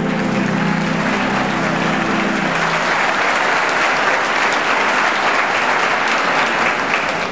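A large theatre audience applauding, with the organ's last held chord sounding under the clapping and ending about two and a half seconds in.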